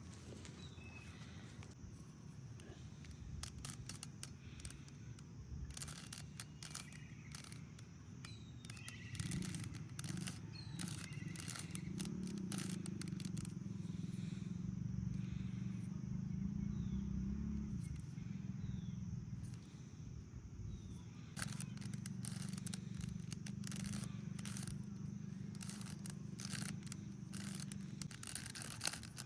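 Irregular plastic clicks and clacks of a Rubik's Cube's layers being turned by hand. A low steady hum comes and goes, with a few faint high chirps.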